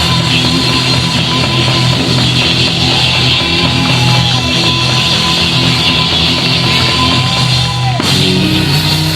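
Live gospel band playing loudly, with electric guitar, bass and drum kit. About eight seconds in, the sound changes abruptly.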